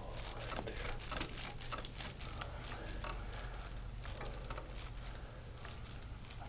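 Hands kneading deep into a shoulder muscle during soft-tissue massage: faint irregular clicks and rubbing of skin and fabric, over a low steady hum.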